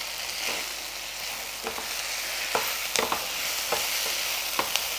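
Moringa leaves with spices sizzling softly in a non-stick pan while a silicone spatula stirs them, with about six light knocks and scrapes of the spatula against the pan. The leaves are being sautéed on a very low flame with almost no oil to wilt them.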